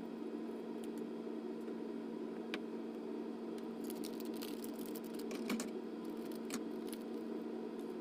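A few small, sharp clicks and taps, most of them bunched together about halfway through, from tools and small parts being handled during a phone repair. Under them runs a steady low electrical hum with hiss.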